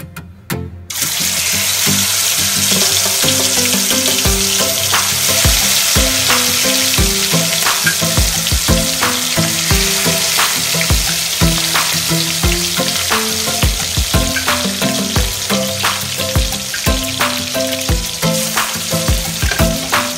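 Chicken pieces in a wok of hot oil start sizzling suddenly about a second in, and the frying hiss then keeps going steadily, dotted with frequent crackles and pops.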